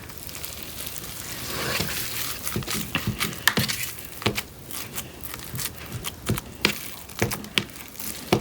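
A fork mixing slime into instant snow in a bucket: irregular crunching and crinkling with many scattered sharp clicks as the fork scrapes and the snow is worked in.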